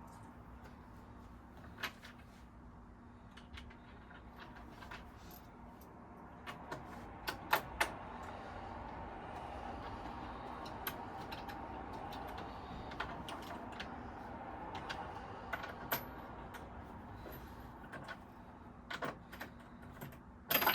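Scattered light clicks, clinks and knocks of sofa parts and metal fittings being handled and fitted together during flat-pack assembly.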